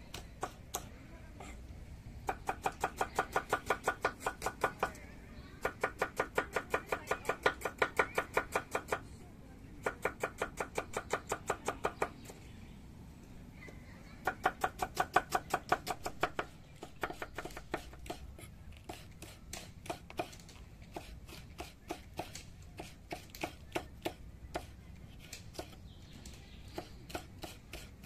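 A knife chopping quickly, about six even strokes a second, in runs of two to four seconds with short pauses. Each stroke has a light ring. From about two-thirds of the way through, the strokes turn sparse and uneven.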